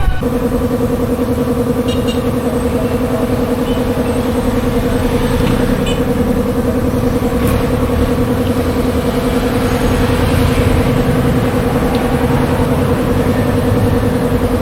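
A machine running steadily at one constant speed, giving an even hum that starts suddenly and holds unchanged.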